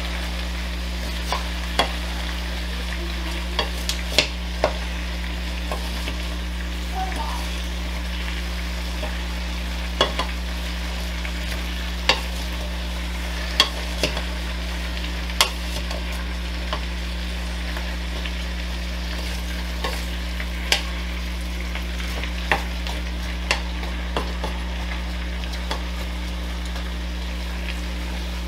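A wooden spoon stirring chopped carrot, onion and celery in a stainless steel saucepan, with sharp irregular knocks of the spoon against the pan every second or two. Underneath, a steady low sizzle of the vegetables sweating in butter on low heat, with a constant low hum.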